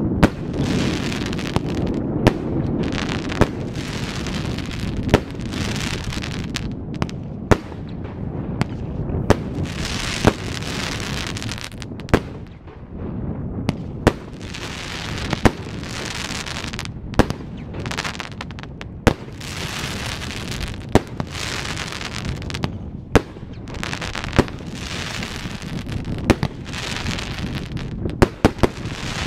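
Krevad 'Thunder Lord' 19-shot firework cake firing: a loud, sharp bang about every one and a half to two seconds, with a rushing hiss between the bangs.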